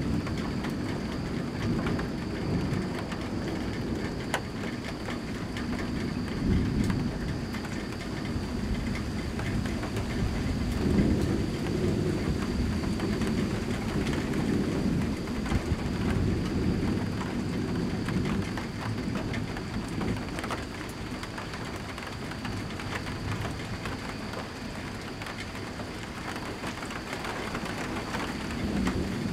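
Steady rain falling, with drops ticking on nearby surfaces, under rolling thunder. The thunder swells into low rumbles several times, loudest about eleven seconds in.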